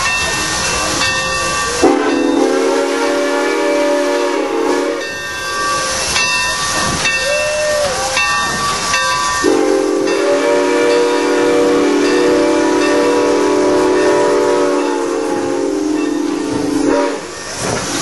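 Steam locomotive whistle blowing two long blasts, one of about three seconds starting two seconds in and a longer one of about seven seconds starting near the middle, with a short toot between them, all over a steady hiss of escaping steam.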